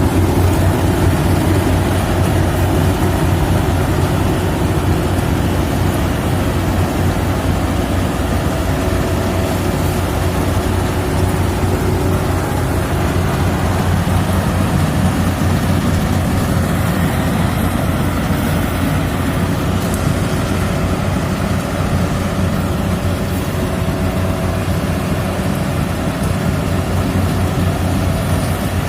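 Yanmar AW70 combine harvester's diesel engine running steadily at working revs, with the hum of its harvesting machinery.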